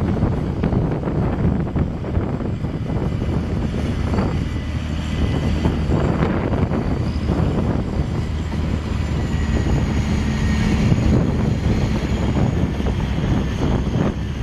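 Volvo BM articulated dump truck's diesel engine running with a steady low rumble as the loaded hauler drives slowly past.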